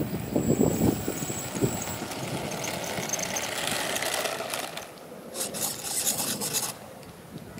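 Rasping scrape of a small cardboard RC plane's wheels and airframe on rough asphalt. Wind gusts on the microphone come first, and the scraping comes in short bursts near the end.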